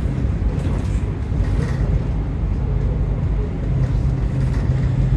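Bus diesel engine and road noise heard from inside the front of the bus as it pulls away, a low rumble under load that settles to a steady engine hum about three and a half seconds in.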